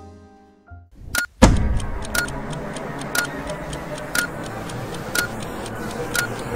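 A piano note dies away, then a loud hit about a second and a half in, after which a digital countdown timer beeps once a second, counting down, over a steady noisy hiss.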